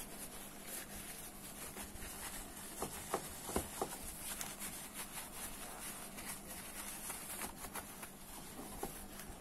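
Spinning reel parts being handled and fitted during reassembly: a steady light rubbing with many small scattered clicks and taps, a few sharper ones about three to four seconds in.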